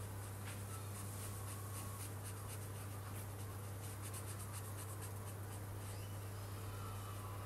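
Felt-tip marker rubbing on paper in quick repeated colouring strokes, over a steady low hum.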